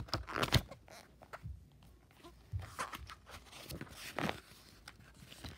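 Paper pages of a book rustling and flapping as they are flipped by hand, with handling noise from the book. The sound comes in short irregular bursts, loudest about half a second in and again around three and four seconds in.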